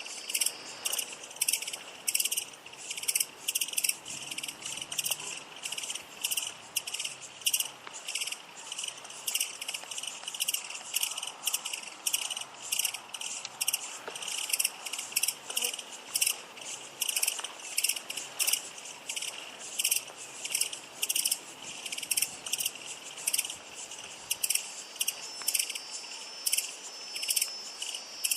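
Grasshopper stridulating: a long run of short, dry chirps repeating about two to three times a second. A faint steady high-pitched tone runs underneath near the start and again near the end.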